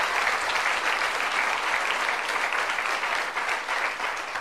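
Studio audience applauding, a steady dense patter of many hands clapping.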